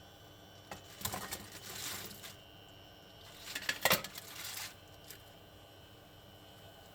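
Clinking and clattering of a utensil and food against a frying pan while bok choy is sautéed, in two short bursts, about one second in and again near four seconds in.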